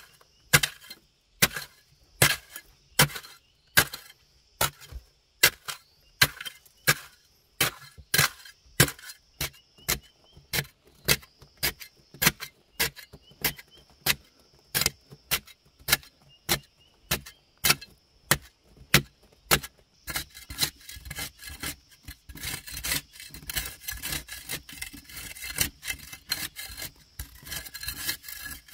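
A long-handled digging hoe chopping into hard packed clay, a sharp strike a little more than once a second. About twenty seconds in, the strikes give way to quicker, continuous scraping as the blade is drawn across the clay wall to shave it.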